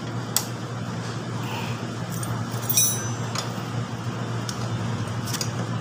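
Light metallic clicks and clinks as motorcycle rear-wheel parts are pushed and worked loose, with one ringing metal clink near the middle, over a steady low hum.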